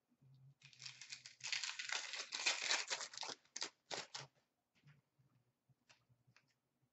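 Trading card packaging crinkling and tearing for about three seconds, then a couple of sharper rustles and a few small clicks as the cards are handled.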